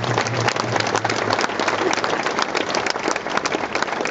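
Audience applauding: many people clapping densely and steadily.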